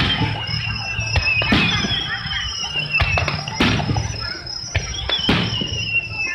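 Aerial fireworks shells bursting: a string of sharp bangs, about seven, unevenly spaced, over a high wavering tone that slowly slides down in pitch.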